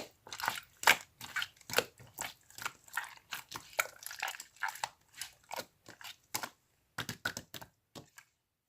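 Slime being squeezed and worked by hand, making a quick, irregular run of sticky clicks and pops that thins out and stops near the end.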